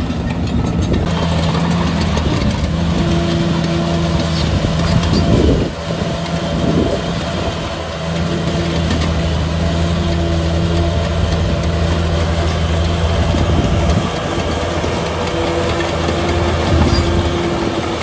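Heavy diesel engine of earthmoving machinery running steadily, its note dipping and surging briefly about five to seven seconds in as the load changes.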